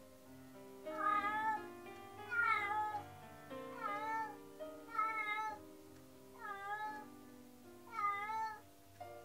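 Domestic cat meowing six times, each meow a drawn-out call that bends in pitch, about one every second and a half: lonely crying with its owners away from home. Piano background music runs underneath.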